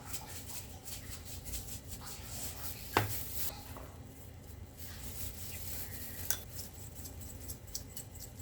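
Kitchen utensils and cookware clinking and knocking, with one sharp knock about three seconds in and a smaller one a few seconds later.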